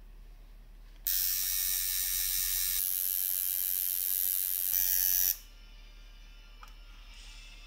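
Coil tattoo machine buzzing: a faint steady hum, then about a second in a much louder, hissy buzz that lasts about four seconds and stops abruptly, dropping back to the faint hum.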